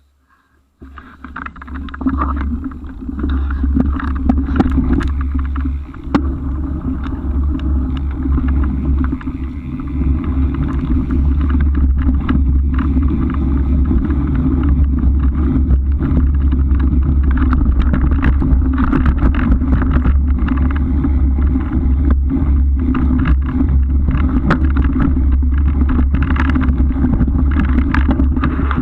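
Wind buffeting a camera mounted on a moving bike, a steady heavy rumble starting about a second in, with frequent short knocks and rattles from the ride.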